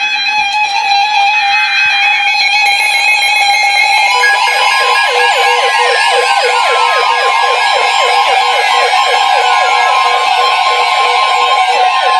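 Weather alert radios sounding a tornado warning. Pulsing electronic beeps come first. About four seconds in, the steady NOAA Weather Radio alert tone starts, joined by rapidly warbling siren-style alarms and slow falling sweeps.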